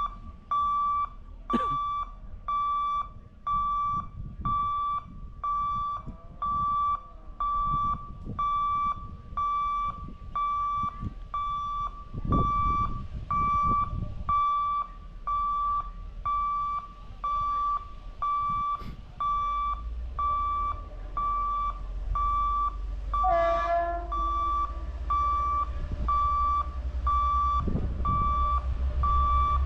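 Level-crossing warning beeper at an Indian railway gate, sounding a steady repeated beep about one and a half times a second, the signal that the gate is closing for a train. A low rumble grows louder in the last third, with a short sliding-pitch sound a little before it peaks.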